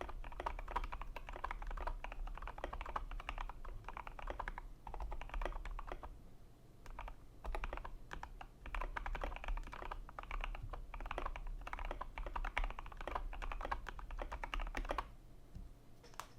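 Typing on a KBD75v3 custom mechanical keyboard with lubed Kailh Cream switches, a copper plate, foam inside and Susuwatari keycaps: fast runs of keystrokes. The typing thins out about six seconds in, picks up again and stops near the end.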